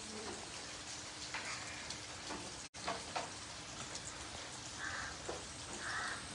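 Steady rain falling on wet paved ground and puddles, with scattered drop splashes. The sound cuts out for an instant about two and a half seconds in.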